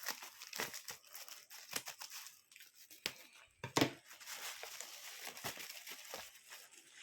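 Hands unwrapping packaging around small diecast model cars: irregular crinkling and tearing with scattered sharp clicks, one louder crackle about halfway through.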